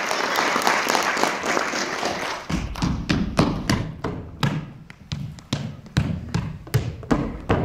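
Audience applause dying away, then a string of thumps, about three a second, of feet running and stamping on the stage floor.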